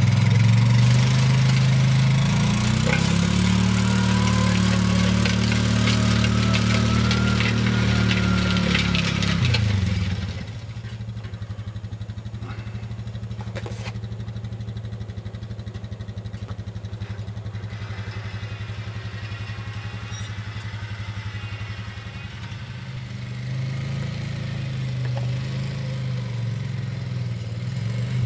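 Four-wheeler (ATV) engine running steadily under load as it tows a disc harrow through garden soil, with clatter from the disc gangs while it is close. About ten seconds in the engine becomes quieter as it moves away, and it grows louder again near the end as it comes back.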